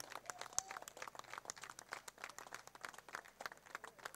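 Light, scattered applause from a small crowd: sparse, irregular handclaps, faint.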